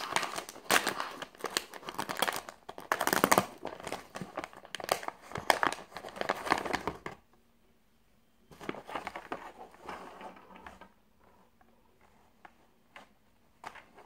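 Plastic packaging crinkling and rustling as it is handled and opened by hand. It goes on densely for about seven seconds, stops, crinkles again for a couple of seconds, then gives way to a few light rustles near the end.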